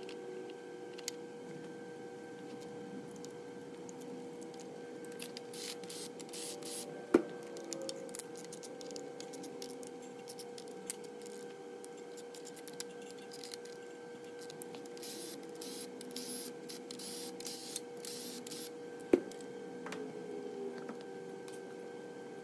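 Hand work on the front of a bare LS V8 engine block as the oil pump is fitted and its bolts are run in: scattered light metal clicks and handling rustles, with two sharp metallic knocks, one about seven seconds in and one a few seconds before the end, over a steady background hum.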